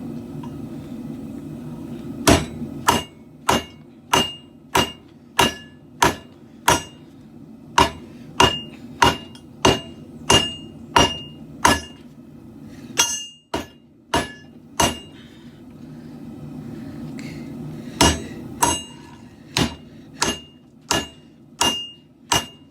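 Hand hammer striking steel, each blow with a bright metallic ring, at a steady pace of about one and a half blows a second, with a pause partway through before the hammering resumes. A steady low rumble runs underneath.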